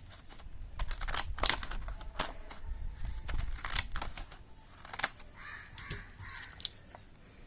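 Decorative-edge craft scissors cutting paper in a series of short, uneven snips, each closing of the blades giving a sharp click.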